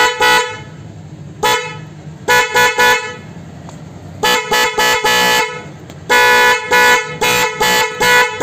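Aftermarket 'jalwa' horn on a motorcycle, working through its newly wired relay and sounded in quick groups of short honks, a few held a little longer. It gives a loud, steady-pitched tone.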